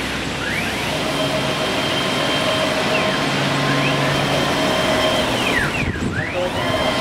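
CNC wood router running, its axis drive motors whining in glides that fall and then rise again several times as the moving head slows, reverses and speeds up, over a steady machine hum.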